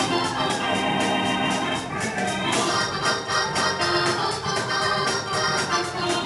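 Worship music: held keyboard chords over a steady quick beat.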